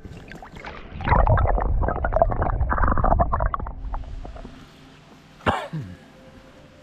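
Water sloshing and gurgling close to the microphone for about three seconds, then fading. About five and a half seconds in comes a single sharp knock.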